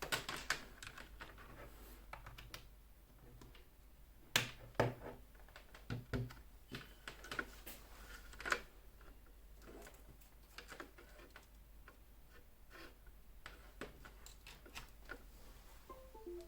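Typing on a Ducky One 2 SF mechanical keyboard with brown (tactile, non-clicky) switches: irregular key clacks in scattered runs, loudest about four to five seconds in and again near eight and a half seconds.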